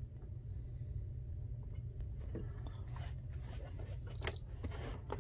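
Small clicks and scrapes of a screwdriver working out the screws that hold a laptop's LCD panel, most of them in the second half, over a steady low hum.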